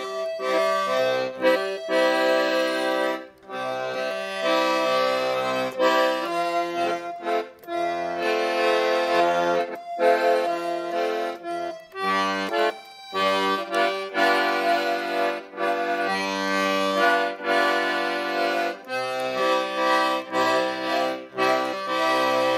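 Piano accordion playing a tune: a melody over sustained chords, with bass notes from the left-hand buttons underneath and a few short breaks between phrases.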